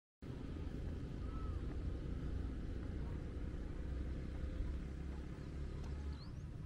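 Steady low rumble with a light hiss that cuts in abruptly just after the start, with two faint short chirps over it.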